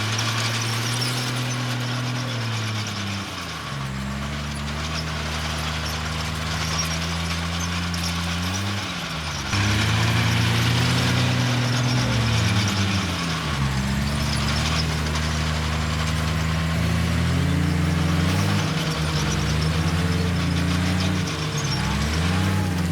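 Bulldozer's diesel engine working under load, its pitch sagging and then rising again every few seconds, with a steady hiss over it.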